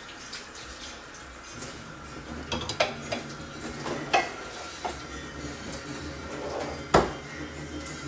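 Kitchen clatter of pots, pans and utensils: a few light clinks and knocks, then one loud knock about seven seconds in, over a low steady hum.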